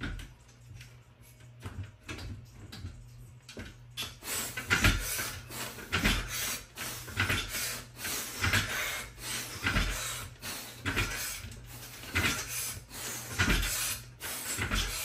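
A set of pull-ups: after a few light clicks, rhythmic effortful breaths begin about four seconds in, roughly one a second, with knocks and metallic clinks of the pull-up bar.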